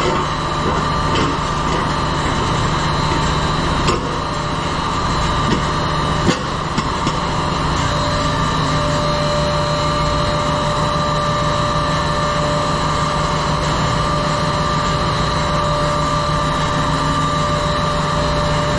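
Ship's engine-room machinery running steadily: a loud, constant drone with several steady whining tones over it, and a further tone joining about eight seconds in. A few short knocks come in the first seven seconds.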